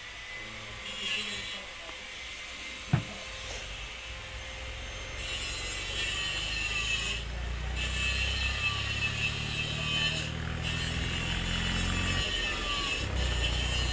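A single sharp click about three seconds in. From about five seconds in, an engine runs steadily with a hissing rasp above it.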